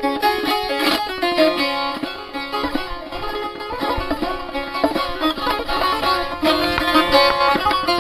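Music played on a plucked string instrument: a melody of quick, closely spaced notes.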